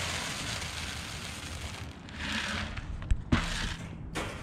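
Corn kernels pouring from a plastic bucket onto a wire cage trap: a dense, steady rattling hiss for about two seconds. Then come shorter rattles as handfuls of corn are spread, with a sharp knock a little after three seconds.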